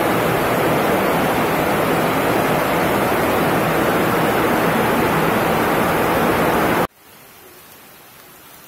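Heavy rain pouring onto wet pavement, a loud even hiss that cuts off abruptly about seven seconds in and leaves a much quieter steady hiss.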